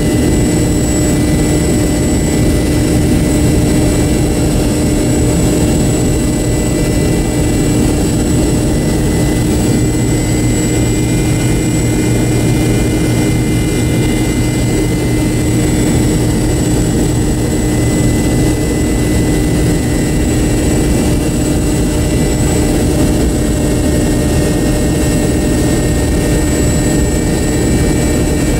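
An MD-88's rear-mounted Pratt & Whitney JT8D-219 turbofan running at low taxi power, heard inside the cabin right beside the engine: a steady drone with a constant high whine.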